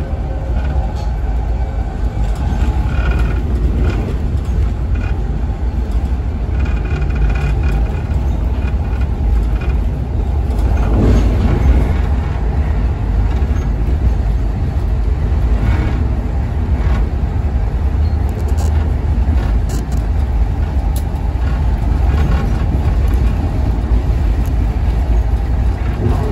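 Amtrak passenger train running along the track, heard from inside the coach: a loud, steady low rumble of wheels on the rails, with a brief louder rush about eleven seconds in.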